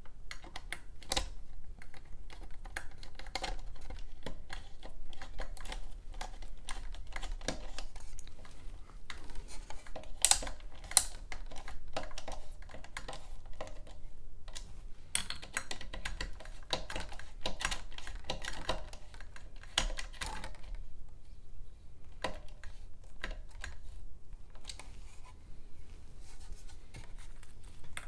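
Rapid, irregular clicking and clattering of screws, tools and fan-blade brackets being handled as blades are fastened onto a ceiling fan, sped up by fast-forwarding.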